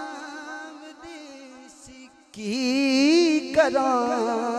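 A man singing a Punjabi naat into a microphone: ornamented, wavering held notes over a steady sustained drone. A softer sung line in the first half gives way, about halfway through, to a loud full-voiced phrase.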